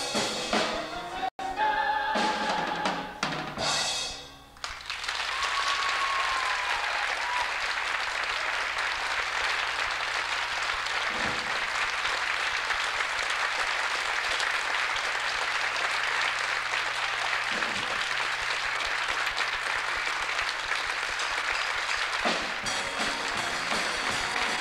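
Live band and choir music with drum kit ends within the first five seconds, and an audience applauds steadily through most of the rest. About two seconds before the end, the band starts playing again under the applause.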